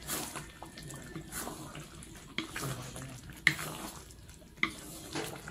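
A wooden spatula stirs beef in a thick, glossy sauce in a metal wok, giving wet sloshing and squelching. Light knocks and scrapes of the spatula against the pan come about once a second.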